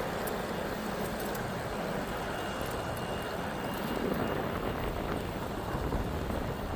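Steady wind rush and rumble on the microphone of a bicycle riding along a trail, with no clear rises or breaks.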